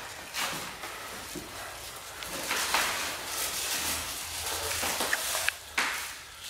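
Scuffs, shuffles and clothing rustle of two people moving and lifting on a wooden floor, with a couple of sharp knocks near the end.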